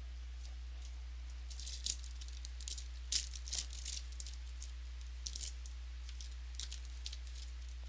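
Trading cards being handled and flipped through: scattered light clicks and rustles of card stock, over a steady low electrical hum.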